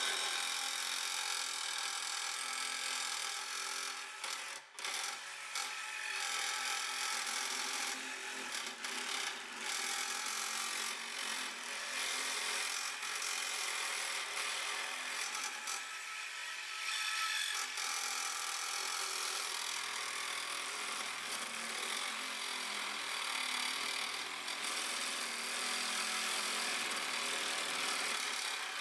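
Cordless reciprocating saw with a bi-metal blade cutting steadily through steel rebar, the blade rasping on the metal without a break apart from a brief dip about four and a half seconds in.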